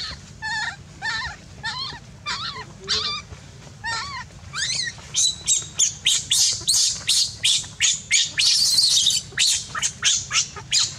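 Baby macaque crying in distress: short high-pitched calls about two a second, which about halfway through turn into faster, louder, shrill screams.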